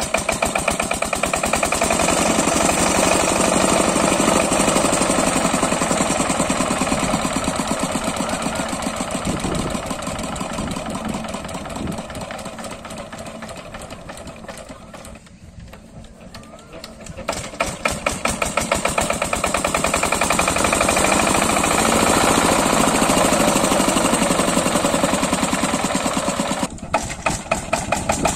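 Single-cylinder 8 hp diesel engine of a water pump set running with a rapid, even knock of firing strokes. About halfway through it slows and quietens almost to a stall, then picks back up to full speed, and it dips briefly once more near the end.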